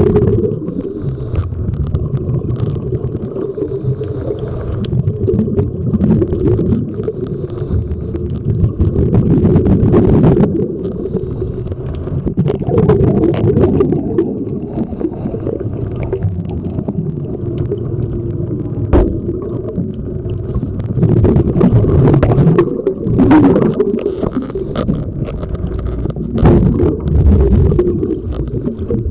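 Underwater recording of a diver breathing through a regulator: bursts of exhaled bubbles gurgle past every few seconds over a steady low rumble.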